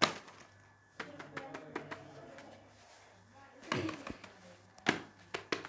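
Sharp taps and clicks from handling fidget toys: a few scattered at first, then a quick run of taps, about three a second, near the end.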